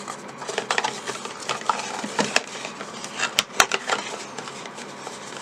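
Small plastic accessories and their packaging being handled: irregular clicks, taps and light rustling.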